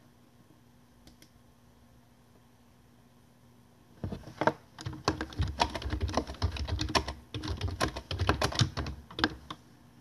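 Fast, irregular typing taps with low knocks, starting about four seconds in and stopping shortly before the end, after a quiet start with a couple of faint clicks.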